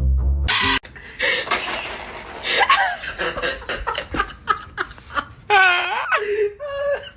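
People laughing hard in short breathy bursts, with a longer wavering pitched laugh about five and a half seconds in.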